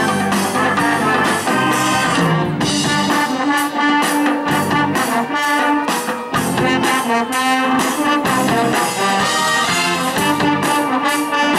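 Youth brass band playing a rock number, trumpets and trombones over a steady beat.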